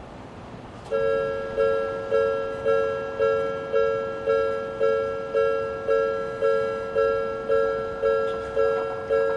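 Electronic level-crossing warning bell of the Odakyu type starting up about a second in, sounding a two-note ding nearly twice a second, each strike fading before the next.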